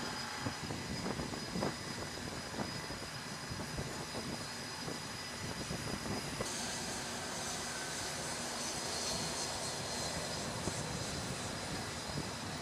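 Steady jet engine noise with scattered short metallic knocks. A high hiss comes in about six and a half seconds in.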